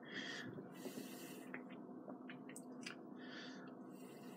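Quiet room tone with a faint steady hum. Two soft breaths near the microphone, one at the start and one about three seconds in.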